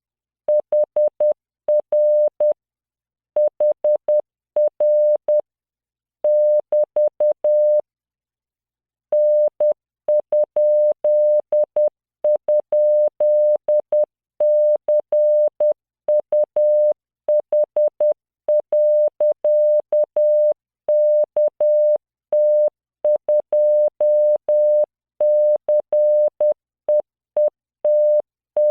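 Computer-generated Morse code: a 600 Hz tone keyed in dots and dashes at 10 words per minute, sending random practice characters. There is a pause of about a second around eight seconds in.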